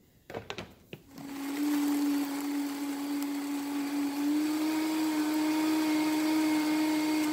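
Vitamix countertop blender motor running, blending ice with the lime-and-tequila mix into a frozen margarita slush. It is a steady hum with a whine whose pitch rises slightly about four seconds in. A few short clicks come just before the motor starts, about a second in.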